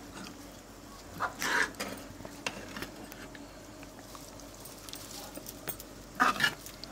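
A serving spoon scrapes and knocks against cookware in two short bursts, one about a second and a half in and one near the end, with quiet between them.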